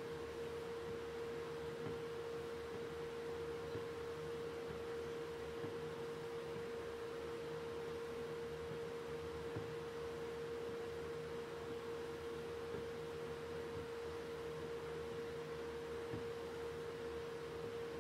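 Steady pure hum, with a faint even fizz underneath from a saltwater electrolytic etching bath bubbling as a DC welder drives current through it.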